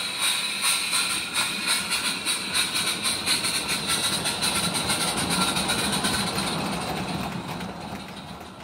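A 16mm-scale garden railway train of loaded coal wagons rolling past, its wheels clicking in a quick, uneven rhythm over the rail joints, fading near the end.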